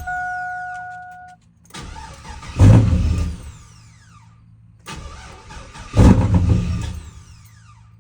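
A 2001 Chevy Silverado's engine being started repeatedly. It catches with a loud burst, then dies within a couple of seconds, its pitch falling as it winds down. This happens twice, about two and five seconds in, after the tail of an earlier attempt. It will not stay running, which the owners suspect is the security system cutting it off. A steady electronic warning tone sounds until about a second and a half in.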